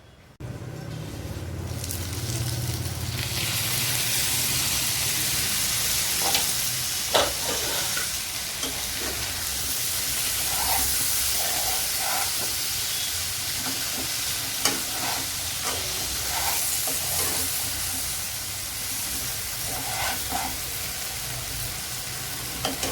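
A pan of cluster beans and wheat dough balls sizzling and hissing as they steam under the lid on the stove, with a few scattered pops. The hiss starts suddenly and grows fuller about three seconds in.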